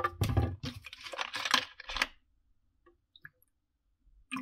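Handling of a small plastic cleaning tank and its lid: a quick run of clicks, knocks and rattles for about two seconds, then quiet, with a few clicks again at the very end.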